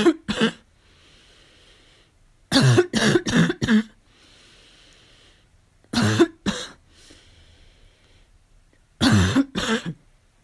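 A person with a cold coughing a harsh, barking cough: four fits of two to four coughs each, about three seconds apart, with breaths drawn in between.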